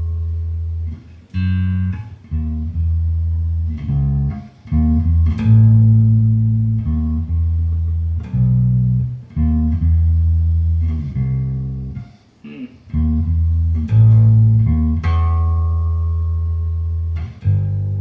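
Electric bass guitar with flatwound strings playing a slow line of single, held notes, picking out a melody by ear.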